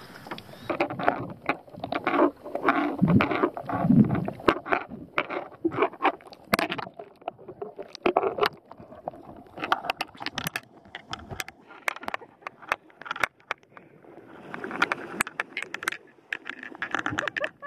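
Water sloshing and splashing around a camera dipped into shallow sea water. While it is under the surface there are many sharp, scattered clicks and crackles. Near the end there is rougher splashing at the surface.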